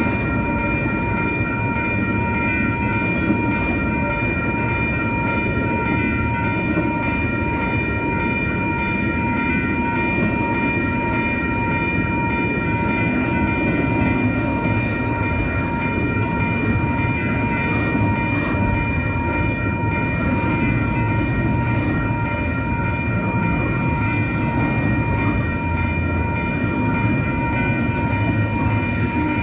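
Double-stack container train rolling past a grade crossing: a steady rumble of the well cars' wheels on the rails. Over it, a steady high ringing that fits the crossing signal's bell, with the gate lowered.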